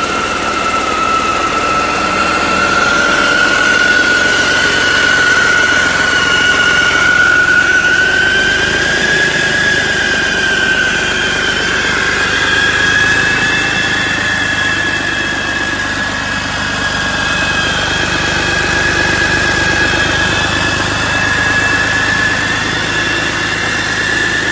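2004 Mercedes-Benz OM460LA inline-six diesel engine running steadily on a stand, with a loud high-pitched whine over it that slowly rises in pitch.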